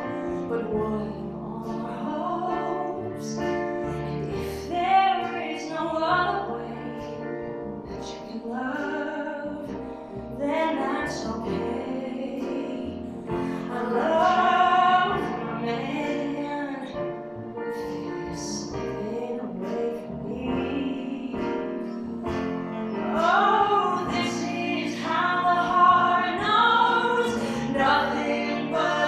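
A woman singing a song at the microphone, accompanied live by acoustic guitar, upright bass and piano.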